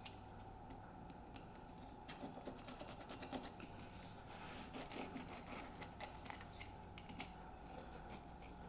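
Faint scratching and small irregular clicks of a screen rolling tool pressing spline into the groove of a window screen frame.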